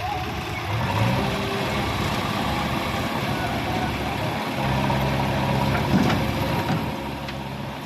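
Heavy diesel engine running, rising in speed about a second in and then holding a steady pitch.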